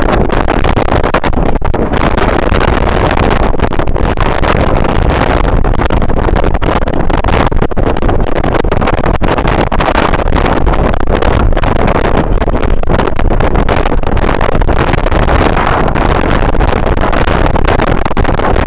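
Strong wind buffeting the microphone: a loud, steady rush with a deep rumble and constant rapid flutter.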